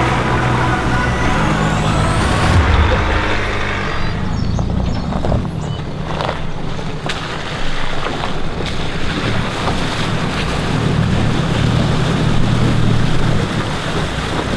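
A 4WD vehicle's engine running as it drives through a shallow river crossing. About four seconds in, the steady engine note gives way to a rougher, noisier sound with scattered knocks.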